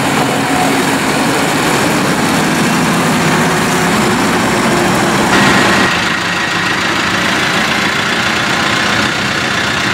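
2015 Case IH Farmall 100C tractor's diesel engine running steadily. Its tone changes abruptly about five seconds in.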